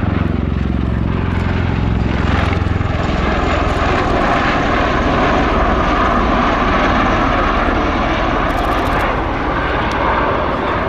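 Bell Boeing CV-22B Osprey tilt-rotor flying past with its nacelles tilted up: its two big proprotors and Rolls-Royce AE1107C turboshaft engines make a loud, rapidly pulsing rotor sound. A few engine tones fall in pitch at the start, and the rushing sound grows stronger from about two seconds in.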